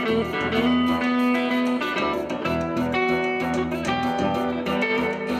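Guitar music played with a steady, even rhythm over a bass line.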